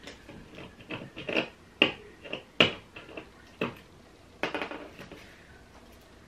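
Fingers tapping and picking at the tabletop while working with tape: a run of sharp knocks and taps, loudest about two and a half seconds in, then a short crackling sound near the end.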